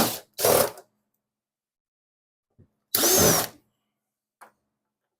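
Cordless drill driver run in two short bursts of about half a second each, backing out the screws that hold a rear valence panel: one just after the start and one about three seconds in, with a falling whine as the second winds down.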